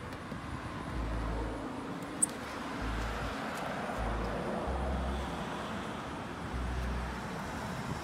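Outdoor ambience of road traffic, with short low rumbles coming and going about every second and a faint tick about two seconds in.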